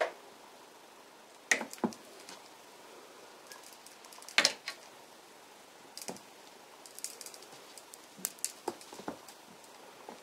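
Irregular short thumps and scuffs of two Norwegian Forest Cat kittens pouncing and scrambling on a rug after a feather teaser, about ten knocks at uneven times.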